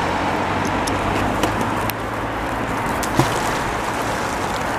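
Steady road traffic noise, with a few light clicks and a small knock about three seconds in.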